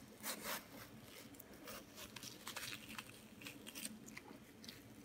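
Stainless steel watermelon slicer's curved blade cutting and scraping through watermelon flesh: faint, irregular wet scrapes and ticks.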